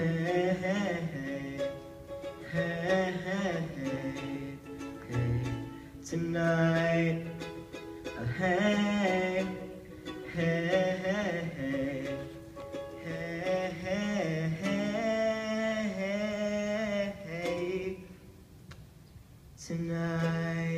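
Live singing with strummed acoustic string accompaniment: a young male voice holds and slides through long sung notes over the chords. About 18 seconds in the music drops away briefly, then a last note is held near the end.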